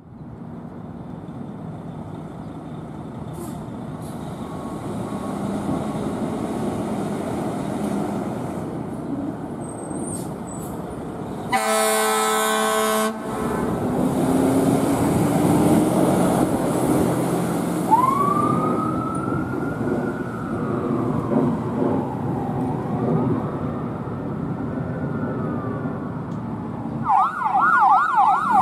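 Fire engine's diesel engine running as the truck pulls out, with a single air horn blast of about a second and a half near the middle. A siren then rises quickly and slowly falls away, and near the end a fast warbling siren starts.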